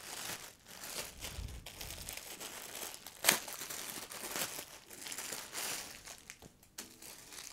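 Clear plastic packaging bag crinkling and rustling as a folded garment is pulled out of it, with a sharper crackle about three seconds in.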